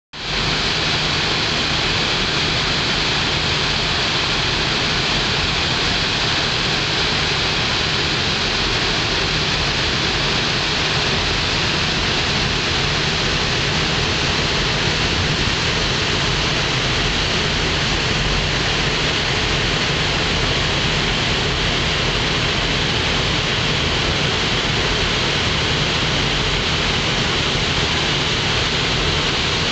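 Steady rushing of the churning propeller wash in a river cruise ship's wake, with the low, even hum of the ship's engine underneath.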